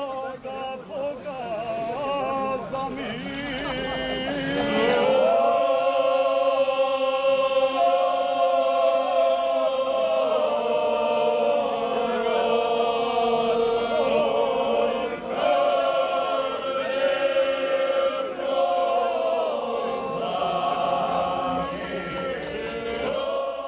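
A group of voices singing a traditional bećarac folk song unaccompanied, with long held notes in close harmony from about five seconds in.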